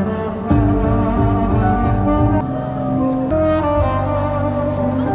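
Live street music played through a PA speaker: a slow melody of held notes over a bass accompaniment.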